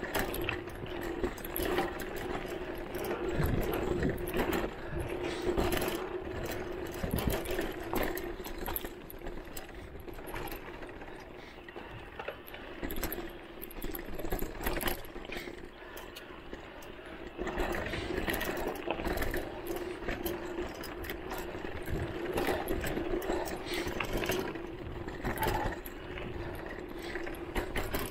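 Voltbike Enduro electric mountain bike's motor whining steadily under pedal assist, dropping away for a few seconds now and then, over the rattling and knocking of the bike jolting along a bumpy dirt trail.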